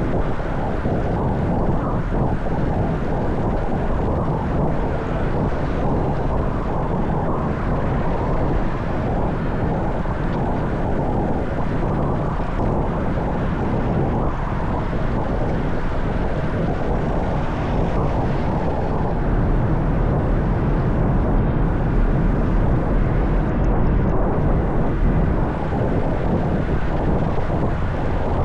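Wind rushing over an action camera's microphone while riding a bicycle: a steady low rumble, a little louder for several seconds past the middle.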